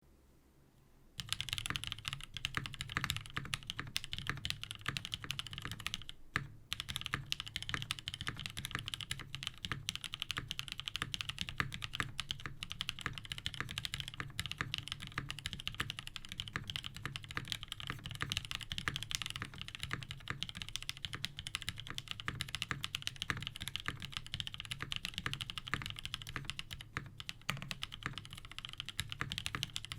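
Continuous typing on a mechanical keyboard with Krytox-lubed NovelKeys Cream linear switches in an all-POM case and plate, with GMK keycaps and Zeal stabilizers. It starts about a second in and stops briefly at about six seconds.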